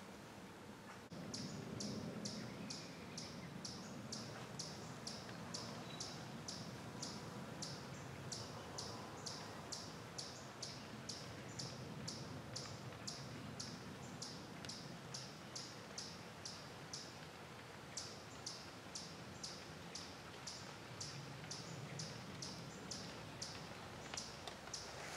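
A short, high-pitched chirp repeating evenly about twice a second, with one brief pause about two-thirds of the way through: a small animal calling.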